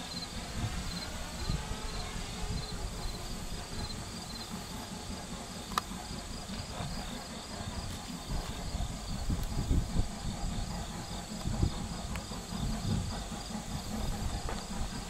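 Insects chirping in a steady, high-pitched pulsing rhythm, over a low, uneven rumble. A single sharp click about six seconds in.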